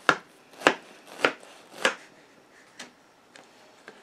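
Kitchen knife cutting down through a Napoleon cake of flaky puff-pastry layers and crumb topping. Four sharp strokes come about half a second apart, followed by two fainter ones.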